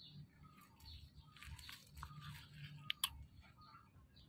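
Faint crunching and chewing from a dog with its muzzle to the ground, with two sharp clicks about three seconds in; small birds chirp in the background.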